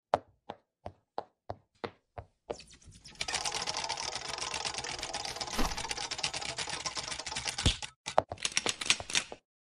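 A series of sharp clicks, evenly spaced about three a second, giving way about two and a half seconds in to a fast, dense clatter of clicks, which breaks off near the end into a few separate clicks again.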